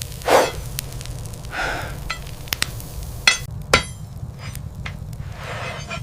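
Hammer blows on metal, struck irregularly: a few sharp hits, the loudest about a third of a second in and two close together a little past three seconds, some with a brief metallic ring, over a steady low hum.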